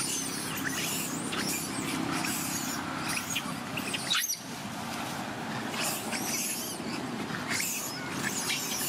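Young long-tailed macaques squeaking and squealing in many short, high-pitched calls, with one sharper, louder cry a little past four seconds in, over a low steady background hum.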